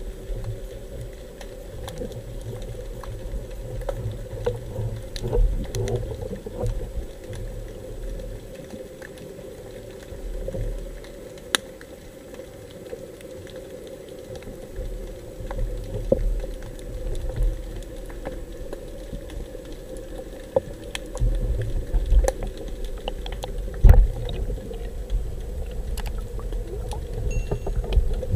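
Underwater sound taken through a submerged camera: a muffled low rumble of moving water that swells and fades, a steady faint hum, and scattered crackles and sharp clicks, one louder click near the end.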